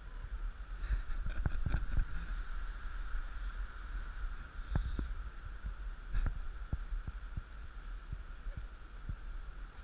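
Wind rumbling on the microphone, with a faint steady hiss and scattered light clicks and crunches.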